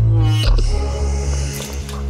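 Background ambient synthesizer music with held chords and a heavy bass; about half a second in, the chord changes and a bright wash of hiss comes in over it.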